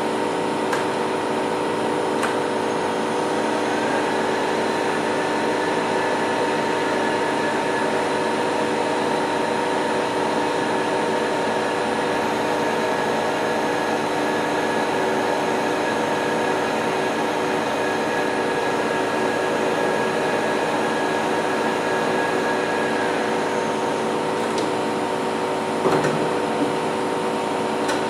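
Novar CNC bed milling machine running under power: a steady mechanical hum carrying several steady whining tones. A higher whine joins about four seconds in and stops a few seconds before the end, followed by a short knock.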